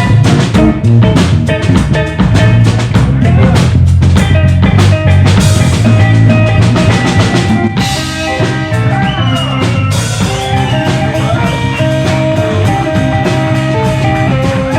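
Electric blues band playing an instrumental passage with no vocals. The drums are busy with many hits at first and thin out about eight seconds in, as held guitar notes with a few bent notes come forward.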